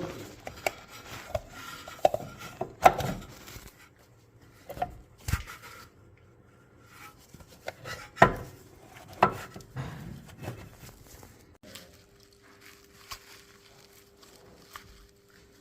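Irregular knocks and clinks of tools and metal parts being handled, about a dozen sharp strikes with quiet gaps between them. A faint steady hum comes in past the middle.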